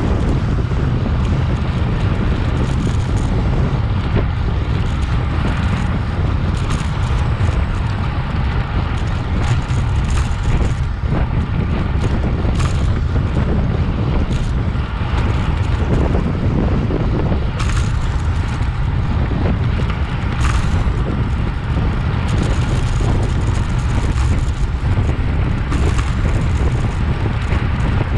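Wind rushing over the microphone of a camera carried on a bicycle ridden at speed: a steady, loud low rumble.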